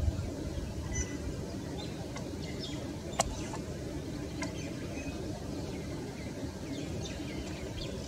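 Outdoor ambience: small birds chirping now and then over a steady low rumble. There is a low thump at the start and a single sharp click about three seconds in.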